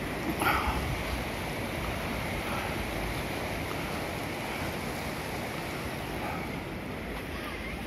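The River Usk in spate, fast floodwater rushing under and past a bridge as a steady, even rush. A brief louder sound comes about half a second in.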